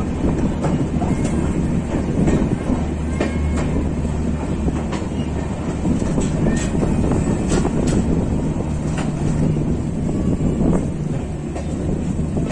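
Express passenger train coach running along the track: a steady rumble of wheels on rails with scattered clicks and rattles and a low hum underneath.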